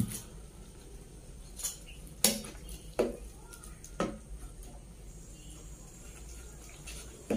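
Wooden spatula stirring food in a non-stick pan, with about five sharp knocks against the pan in the first four seconds and another near the end.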